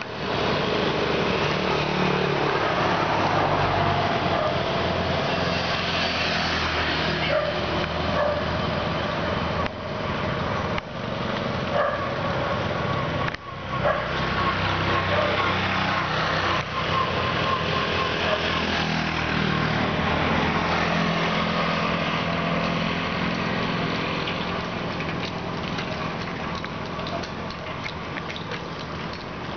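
Road traffic: the engines of passing motorbikes and a car, a continuous hum that eases off slightly near the end.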